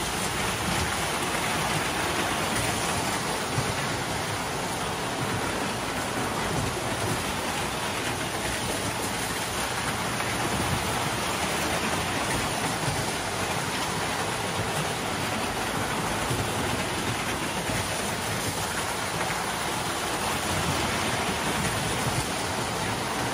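Toy electric trains running on metal track: a steady rushing rumble of metal wheels on the rails as a steam locomotive with red passenger cars passes.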